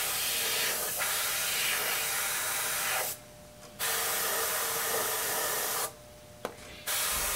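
Airbrush spraying paint: a steady hiss of air that cuts off twice for under a second, a little after three seconds and near six seconds, with a small click in the second pause.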